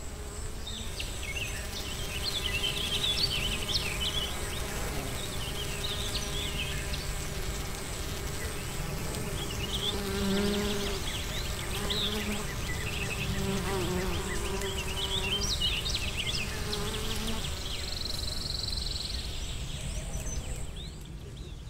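Bee buzzing, a low drone that wavers up and down in pitch and stops a few seconds before the end, with many short high chirps over it.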